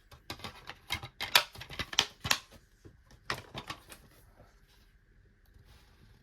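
Plastic DVD cases being handled, with a quick irregular run of clicks and knocks that stops about four seconds in.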